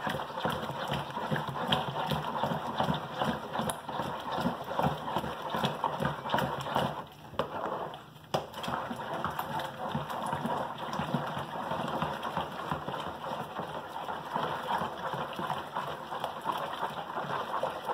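A spatula beating thick homemade liquid laundry soap in a plastic bowl: fast, continuous sloshing and scraping strokes, with a short break about seven seconds in. The mixture is being beaten hard so the soap will not separate later.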